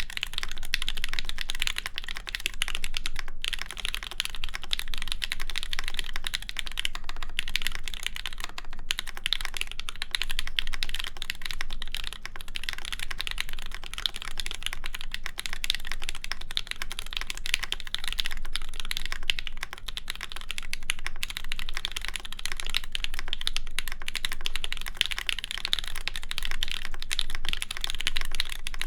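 Fast, continuous typing on a mechanical keyboard with lubed JWK Ms Piggy linear switches, an aluminum plate and GMK keycaps: a dense stream of keystroke clacks with no pauses.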